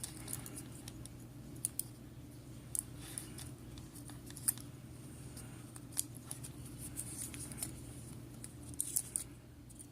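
Small irregular metallic clicks and scrapes of a pin-tumbler lock cylinder being handled and taken apart, over a low steady hum.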